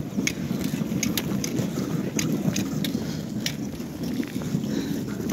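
Wind rumbling on the microphone, with sharp crunching footsteps on snow-covered river ice, roughly two a second.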